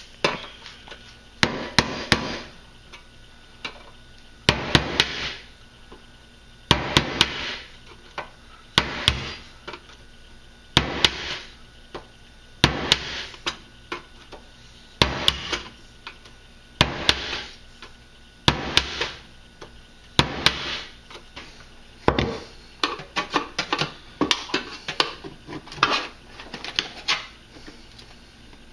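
Claw hammer striking the handle of a flathead screwdriver to drive and cut it through the thin sheet-metal lid of a sealed spam can of ammunition. The strikes come in short groups of a few sharp taps about every two seconds, then come quicker and closer together in the last several seconds.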